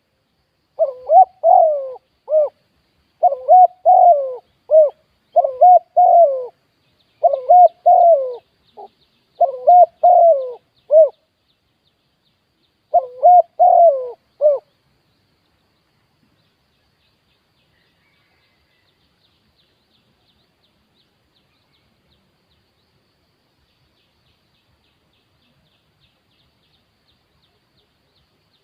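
Spotted dove cooing: six repeated phrases of several notes, about one every two seconds, then stops about halfway.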